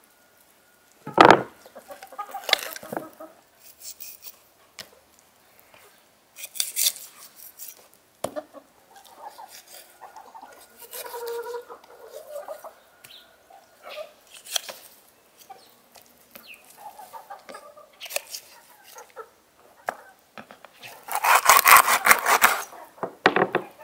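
Domestic hens clucking intermittently, mixed with knife cuts and knocks on a wooden cutting board, with a sharp knock about a second in. A louder noisy burst lasting about two seconds comes near the end.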